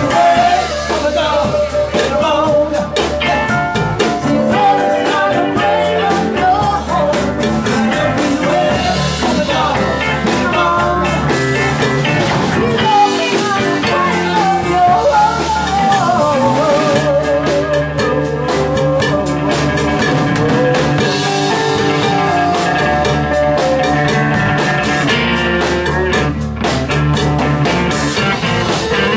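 Blues-rock band playing live: drum kit, bass and guitar under a wavering, vibrato-laden lead melody, with singing in places.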